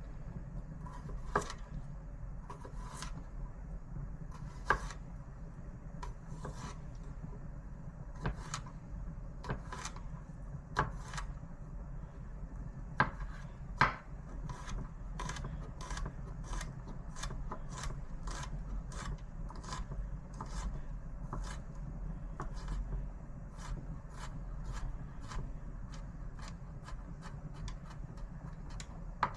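A run of sharp knocks and taps on a wooden surface, such as a kitchen utensil on a cutting board. They come irregularly at first, with a few louder knocks, then settle into a steadier rhythm of about two a second. A low steady hum runs underneath.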